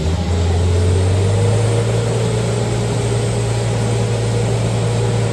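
Dump truck's diesel engine working hard at a steady pitch under heavy throttle, pouring out black smoke as the truck tries to pull free of deep mud.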